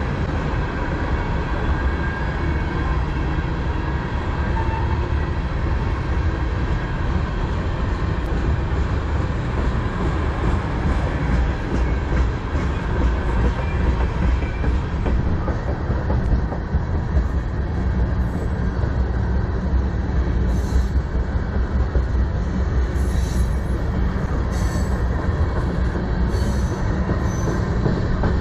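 Freight train tank cars rolling past: a steady rumble of steel wheels on the rails, with a faint high wheel squeal through the first half.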